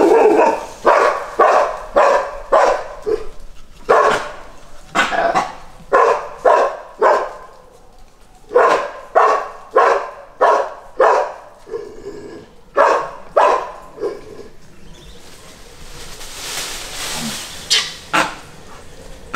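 Dogs barking at langur monkeys, loud sharp barks coming about two a second in runs, with a longer pause about three-quarters through. During that pause a brief soft rushing noise rises and fades, then a few more barks follow.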